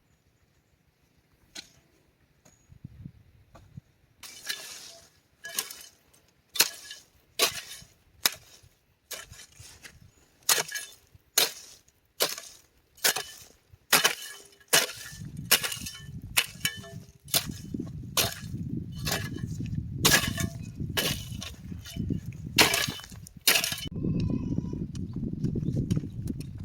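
Repeated sharp blows, about one to two a second, with a low rumble underneath from about halfway in.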